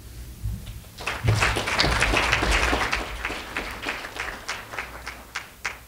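Audience applauding, starting about a second in, at its fullest for a couple of seconds and then thinning out to a few scattered claps.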